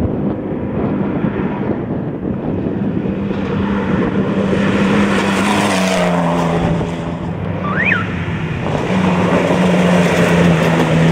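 Off-road race truck engine running hard, a steady drone that drops slightly in pitch about six seconds in, with a brief high chirp near eight seconds.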